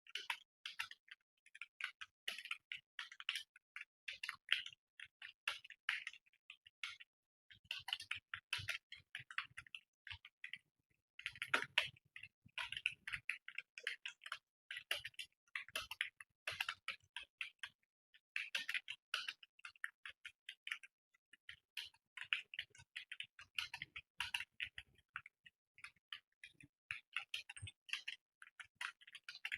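Computer keyboard being typed on fast: rapid runs of keystroke clicks broken by brief pauses.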